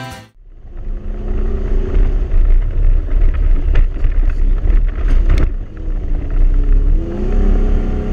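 Toyota Tacoma pickup driving up a sand dune: the engine runs hard with a deep, dense rumble, and a few sharp knocks come a little past the middle. Soundtrack music cuts out at the start and fades back in near the end.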